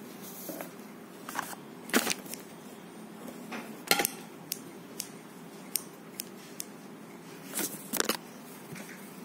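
Handling noise from a small plastic Bluetooth speaker and its cable: a series of sharp clicks and knocks at uneven intervals, loudest about two, four and eight seconds in.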